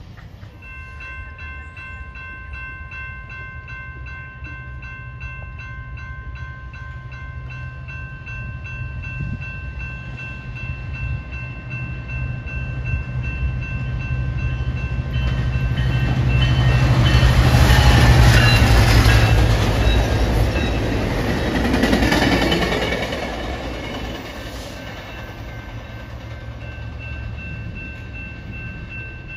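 Railroad crossing bells ring with rapid, regular strikes while a Metrolink commuter train's diesel locomotive and cars approach and pass through the crossing. Engine and wheel noise builds to its loudest about 17 to 19 seconds in, swells again near 22 seconds, then fades. The bells keep ringing throughout.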